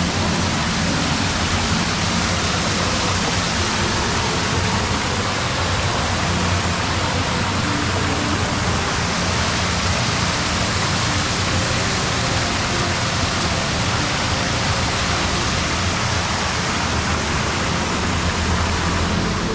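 Man-made rock waterfall pouring into a pool: a steady rush of falling water splashing onto the surface, heard close up.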